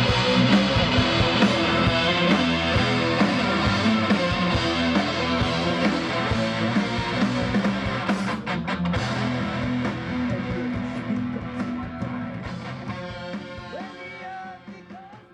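Rock music with electric guitar, fading out over the last few seconds.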